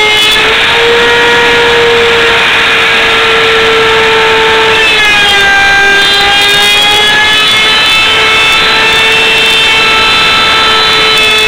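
Kobalt handheld router with a 3/8-inch round-over bit running at full speed while rounding over a board edge: a loud, steady high whine. Its pitch dips about five seconds in and climbs back a few seconds later.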